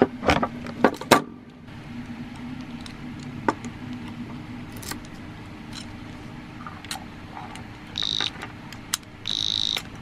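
Metal clicks and rattles of a key and the chrome body of a Banshee alarm padlock being handled. Near the end the padlock's built-in alarm starts sounding: a high electronic beep, first short and then longer.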